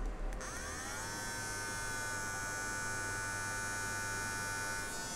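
DOG CARE cordless pet hair clipper switched on about half a second in: its motor spins up with a short rising whine, then runs at a steady buzzing pitch.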